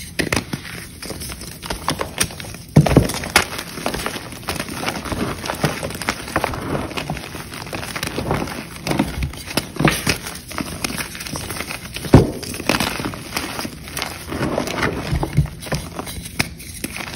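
Chalk being crushed and crumbled by hand: dense crackling and crunching, with a sharp snap about three seconds in and another about twelve seconds in.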